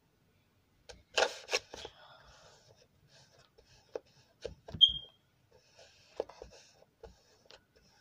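Pink slime being squeezed and stretched by hand, giving a quick run of sharp crackly pops about a second in, then scattered single clicks and pops, with one short high squeak about five seconds in.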